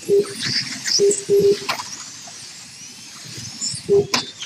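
1/32 scale slot cars running laps, their electric motors giving a high whine that rises and falls in pitch as they speed up and brake through the turns. Short beeps about five times from the lap-timing system as cars cross the line.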